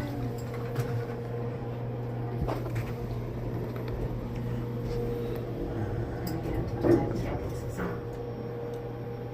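Elevator car running: a steady low hum with a faint steady tone over it, and a few light knocks, the loudest about seven seconds in.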